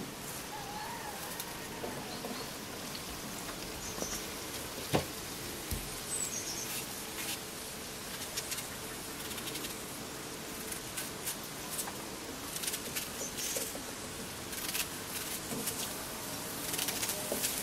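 A wooden spoon stirring in a large aluminium pot, with one sharp knock about five seconds in, then a knife cutting an onion by hand over the pot in a run of small crisp clicks near the end.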